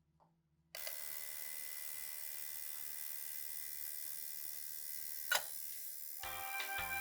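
A small electric power tool switches on about a second in and runs steadily with a high whine, with one sharp click near the end. Music comes in just before the end.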